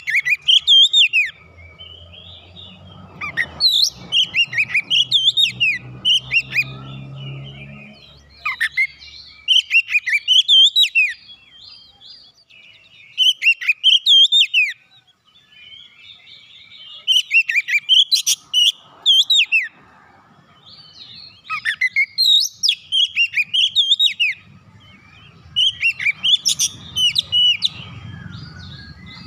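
Oriental magpie-robin (kacer) singing: repeated bursts of loud, varied whistles and chirps, each burst lasting one to two seconds, with short pauses between.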